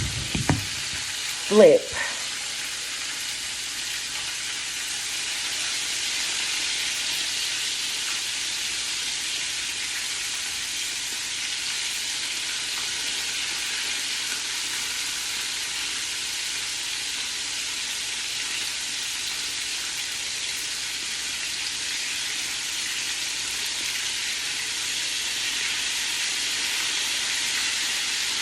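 Flour-dredged chicken pieces frying in hot oil in a pan, a steady sizzle that goes on evenly after the pieces are first turned.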